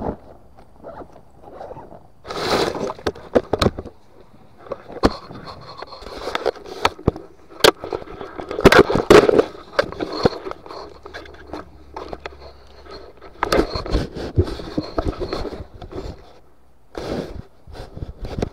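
Scraping and crackling as rubbish is picked up and handled among dry undergrowth close to a body-worn camera. It comes in irregular bursts with sharp clicks and knocks, and is loudest about halfway through.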